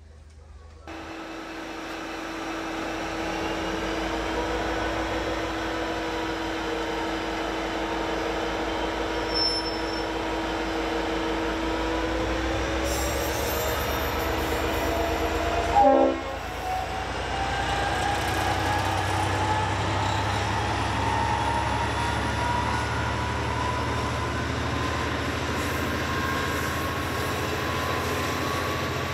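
V/Line N-class diesel locomotive hauling a passenger train. Its engine runs with a steady drone, then after a brief loud burst about halfway through the engine note climbs steadily as the train pulls away.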